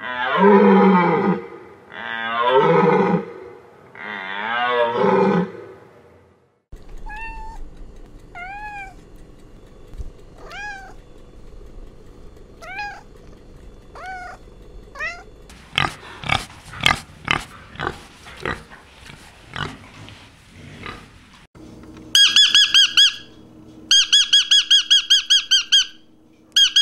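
A run of different animal calls. First come three loud, drawn-out calls that fall in pitch, then a kitten meowing softly over and over, then a string of sharp clicks. Near the end a rosy-faced lovebird gives two bursts of rapid, shrill chirping.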